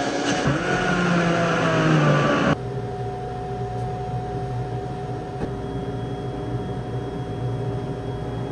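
Countertop blender running at full speed, blending a smoothie, with its motor pitch gliding downward, then cut off abruptly about two and a half seconds in. A steady hum with a constant tone follows.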